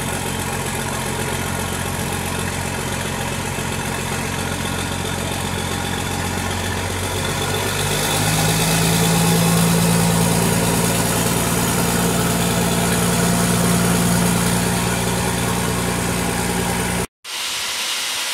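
Mercedes-Benz truck's diesel engine running with a deep rumble, idling at first, then picking up to a faster, louder steady speed about eight seconds in. The sound cuts off abruptly about a second before the end, and a different, hissier sound follows.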